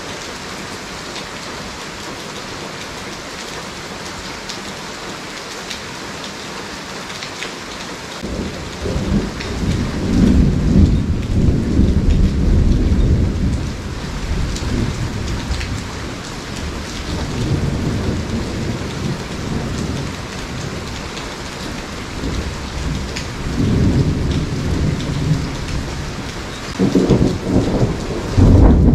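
Steady rain of a tropical thunderstorm. From about eight seconds in, low thunder rolls in several long swells.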